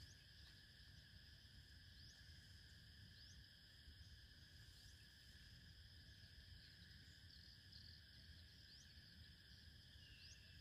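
Near silence: a faint steady drone of insects, with short rising chirps now and then over a low rumble.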